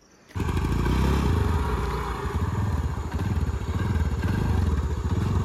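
Motor scooter engine idling: a steady low throb that comes in suddenly just after the start.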